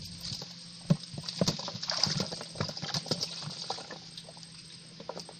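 Wet slaps, splashes and irregular knocks as a freshly caught eel is handled into a plastic bucket, busiest in the first few seconds and fading to a few scattered taps near the end.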